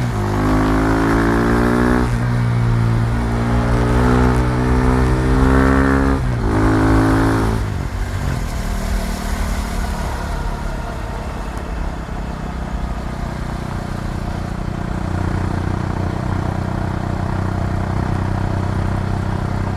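KTM Duke 390's single-cylinder engine pulling up through the gears: the pitch climbs and drops at each shift, about two, six and a half and seven and a half seconds in. After that the throttle is eased and the engine runs at a lower, steady note.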